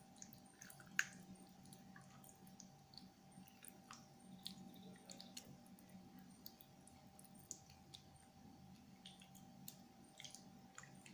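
Faint wet squishes and small clicks of a bare hand working raw chicken pieces through a thick yogurt-and-spice marinade, with one sharper click about a second in.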